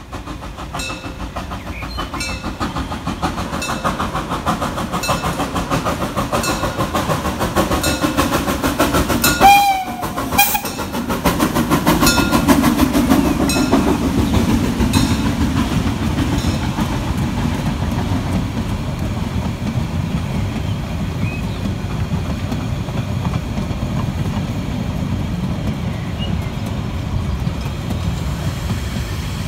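1932-built narrow-gauge steam train passing close by, its wheels clicking over the rail joints, then a steady rumble as the carriages roll past. About ten seconds in, the locomotive gives one short, loud blast on its steam whistle.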